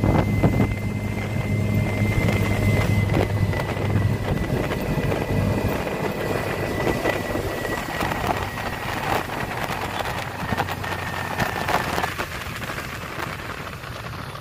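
Road and wind noise of a moving vehicle heard from inside it, with a low engine hum in the first few seconds and a faint steady high whine that fades near the end.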